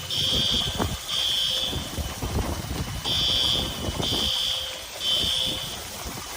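Smoke alarm beeping a high, shrill tone in groups of three half-second beeps with a short pause between groups (the fire-alarm evacuation pattern), over a rough steady background noise.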